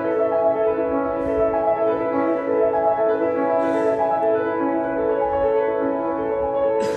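Piano music, many notes ringing together in held, overlapping chords.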